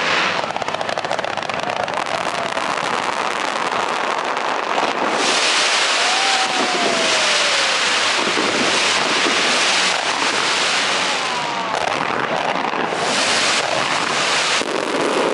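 Dense, continuous hissing and crackling of a fireworks barrage of rising comets and fountains firing together. A falling whistle cuts through about six to eight seconds in, and a few short rising whistles come near the end.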